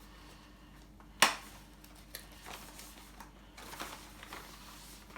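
Cardboard packaging being handled as a box of coffee capsules is opened: one sharp click about a second in, then light rustling and a few small clicks.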